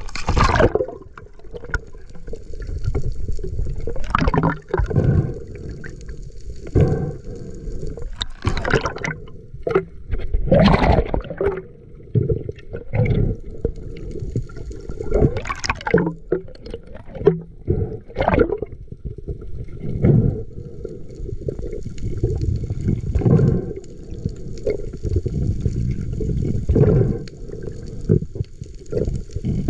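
Water sloshing and gurgling around a spearfisher's camera in the sea, in irregular surges every second or two, mostly low and muffled.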